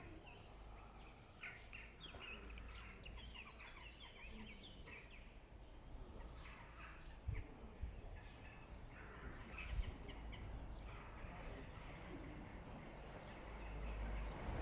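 Small birds chirping and twittering faintly, many short calls throughout, over a low rumble of wind on the microphone; a louder rushing noise builds near the end.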